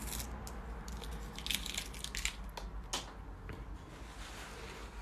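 Masking tape being peeled off watercolor paper: short irregular crackling rips, thickest in the first three seconds, then fading to a quieter rustle.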